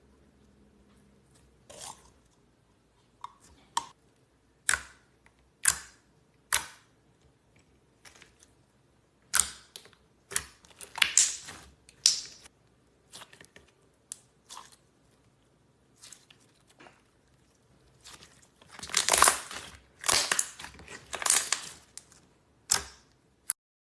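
Slime being squished and poked by hand: short sticky pops and crackles, one or two at a time, coming closer together into a longer stretch of crackling near the end.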